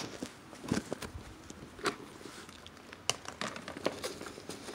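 Scattered light knocks, clicks and rustling of a handheld phone being handled and carried about.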